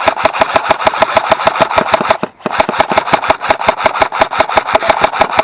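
Airsoft electric rifle firing on full auto: the gearbox motor whirs under a rapid, even stream of shots. It fires two long bursts with a brief pause a little over two seconds in.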